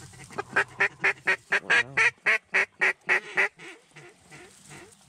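Duck call blown as a mallard hen's hail or greeting call to ducks circling the pond: a long descending string of quacks at about four a second, fading out after about three and a half seconds.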